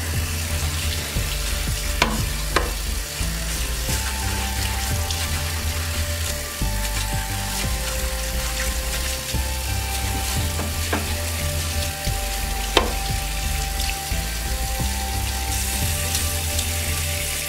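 Tap water running into a bathroom sink while a wave brush's bristles are rubbed and rinsed under the stream, giving a steady hiss with a few light clicks. Background music with low bass notes plays underneath.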